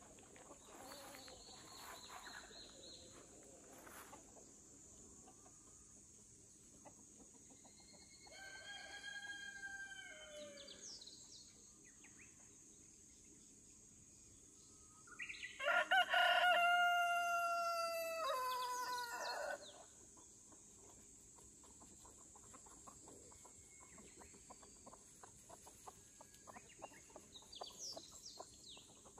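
Rooster crowing twice: a fainter crow about eight seconds in, then a loud, long crow of some four seconds about fifteen seconds in. Hens cluck faintly around it.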